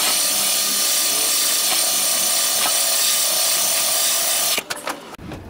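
Corded electric drill spinning an abrasive wheel against a rusty steel truck frame rail, a steady grinding that stops about four and a half seconds in. The wheel is sanding off rust to uncover the stamped VIN.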